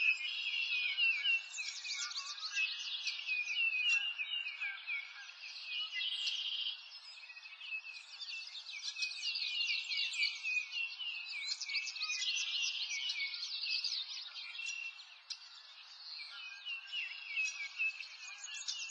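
A chorus of songbirds, many rapid high chirps and trills overlapping throughout.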